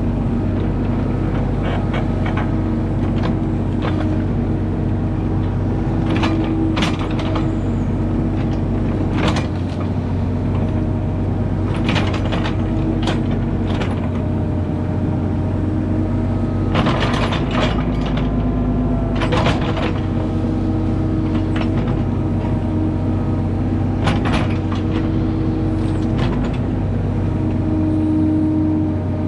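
Compact excavator's diesel engine running steadily under working load, its hydraulics shifting pitch slightly as the boom and bucket move. Short knocks and scrapes come every few seconds as the bucket digs into and dumps the soil.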